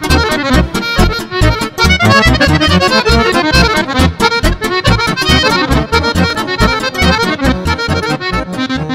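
Guerrini chromatic button accordion playing fast lăutărească-style Romanian folk music: quick runs of melody notes over a steady pulsing bass.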